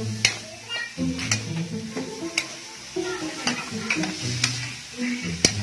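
Metal spatula scraping and clicking against a steel wok as chicken, ginger, onion and chili are stirred, over a steady sizzle of frying. This is the sauté stage of cooking chicken tinola.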